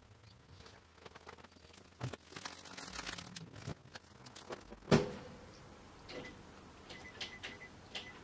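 Quiet room with a run of small clicks and rustles, then one sharp knock about five seconds in, followed by a few fainter ticks.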